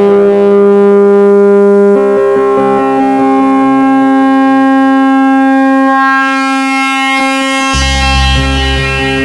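Eurorack modular synthesizer music: a held chord of sustained tones that shifts to new notes about two seconds in. A hissing wash swells in the treble, and near the end a deep bass tone comes in.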